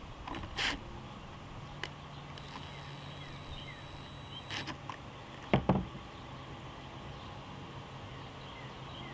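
Light clicks and one sharper knock about five and a half seconds in, from a screw and plastic parts being worked by hand on a leaf blower's carburetor assembly, over a steady low hum.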